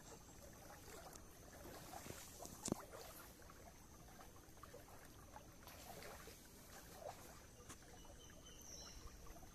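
Near silence: faint water lapping and trickling around a small boat gliding on calm water, with scattered tiny ticks and one sharper click a little under three seconds in.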